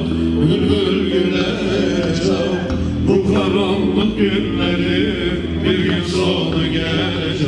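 Live male singing of Turkish folk music, carried on without a break and heard over the room.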